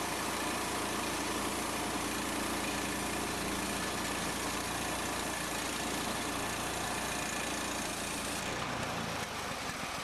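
Portable band sawmill running under power from its Honda GX390 single-cylinder engine, the band blade cutting through a log with a steady engine drone and saw noise. About eight and a half seconds in the sound thins out.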